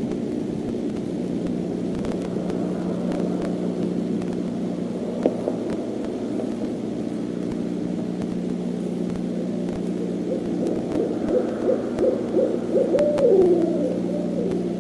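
Owls hooting at night, with a run of wavering, rising-and-falling hoots that grows louder from about two-thirds of the way in, over a steady low electrical hum from the nest-cam microphone.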